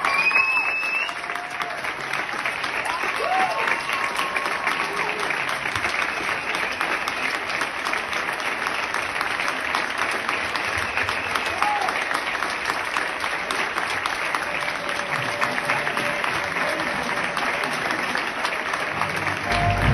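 Large theatre audience clapping steadily, with a few shouts and cheers near the start. Music comes in at the very end.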